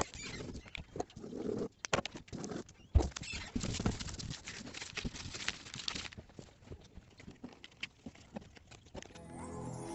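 Thin plastic film crinkling and crackling in irregular clicks and rustles as hands handle and pull it off a canvas board. Soft music begins near the end.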